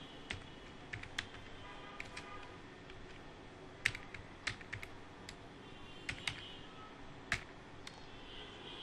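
Computer keyboard being typed on slowly: about a dozen separate, irregularly spaced key clicks.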